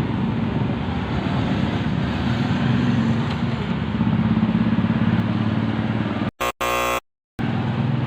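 Motorcycle engine running steadily with a pulsing beat. About six seconds in it cuts off abruptly into short gaps around a brief buzzy tone, then runs again.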